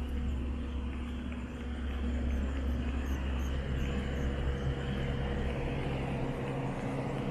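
Steady low mechanical hum of building air-conditioning equipment, with a few even tones over a deep rumble; the deepest rumble drops away about five seconds in. A few faint high chirps come about three seconds in.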